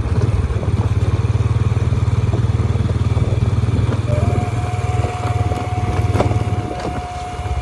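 Small motorcycle engine running with a fast, even low chugging. A steady high tone joins it about four seconds in.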